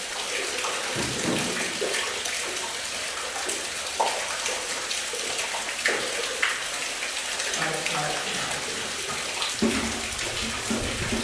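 Cutting torch hissing steadily as it burns through the steel bolts of the blast door's lock top plate, with a few sharp pops.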